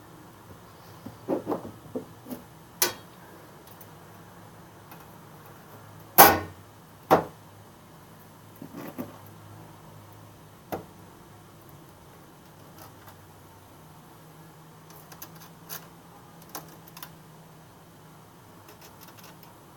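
Sheet-metal top cover of a Marantz PM-17 amplifier being handled and set onto the chassis: a series of sharp knocks and clanks, the two loudest about six and seven seconds in, with lighter clicks before and after.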